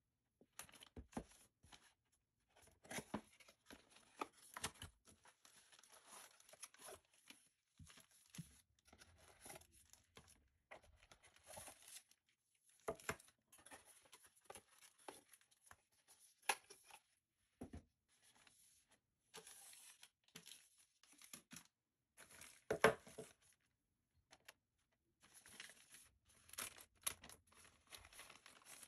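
Faint crinkling and rustling of plastic packaging bags as wrapped drone parts are handled and set down on a wooden table, with scattered light knocks; the loudest knock comes a little past the middle.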